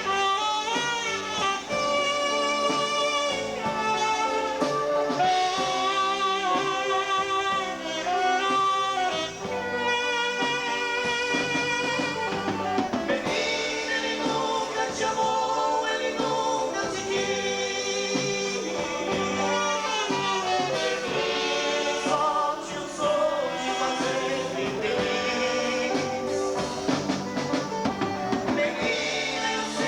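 Live dance band playing a song, with a sung melody over the band's steady accompaniment.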